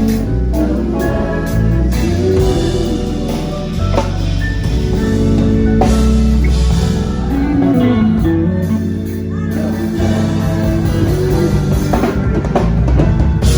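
Band music with guitar and drums, a heavy bass line underneath, playing steadily.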